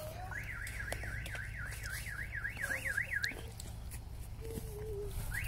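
An electronic alarm tone warbling up and down about four times a second. It sounds for about three seconds, breaks off, and starts again near the end.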